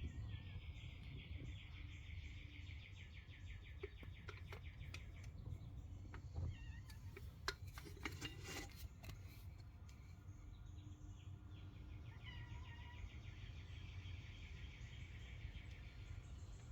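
A faint, fast-pulsing insect trill, heard twice for about five seconds each, over a steady low hum, with a few light clicks in the gap between.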